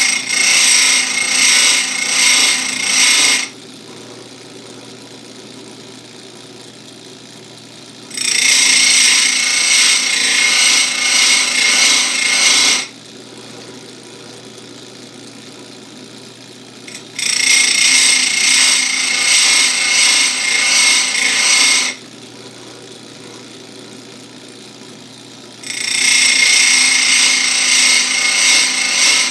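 Electric bench chain-saw grinder's abrasive wheel grinding the cutters of a full-chisel Oregon 72LGX chain, in four spells of about four to five seconds. Between the spells the grinder motor keeps running quietly with a steady hum.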